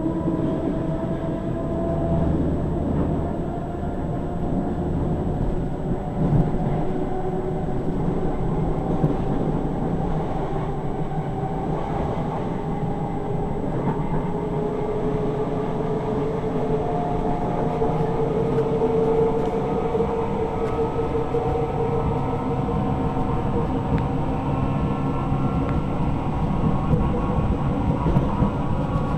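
SNCF Z 6400 electric commuter train under way, heard from on board. The motor car's traction whine is several tones climbing slowly in pitch as the train gathers speed, over a steady rumble of wheels on track with a few knocks. The uploader calls this motor car's noise bizarre.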